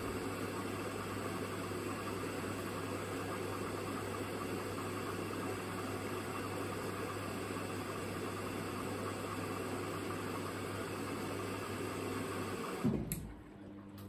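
Hoover DynamicNext washing machine taking in water during its saturation stage: a steady rush of water through the inlet with a low hum. It cuts off abruptly with a click about a second before the end as the fill stops.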